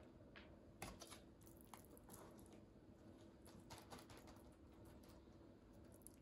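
Quiet, scattered light clicks and rustles of hands folding tamales in their leaf wrappers, over a faint steady hum.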